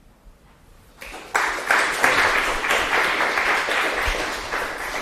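Audience applauding, beginning about a second in and slowly fading toward the end.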